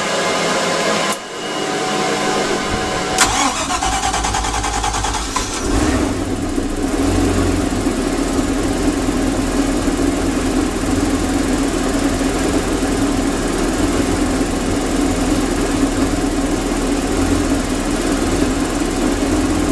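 2005 MerCruiser 5.0 L MPI V8 marine engine being started: a steady whir and a click, a short spell of cranking with rising pitch, then the engine catches about six seconds in and settles into a steady idle without surging, its clogged idle air control muffler foam just replaced.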